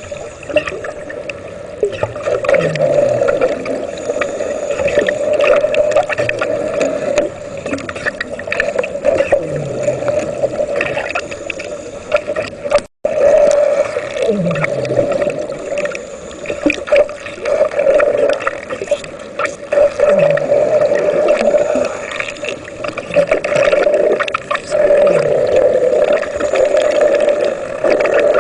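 Underwater electric arc welding: a steady buzzing hum with crackling, mixed with gurgling bubbles and a low falling sweep every few seconds. The sound drops out for a moment about 13 seconds in.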